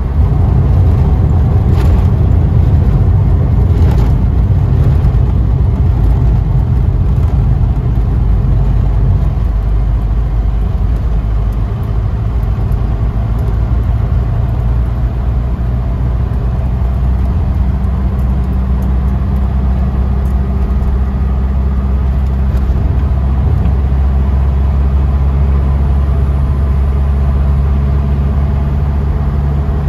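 Inside a Mercedes-Benz taxi cruising along an open road: a steady low engine drone with road and wind noise. About halfway through the rumble eases and the engine settles into a steadier hum.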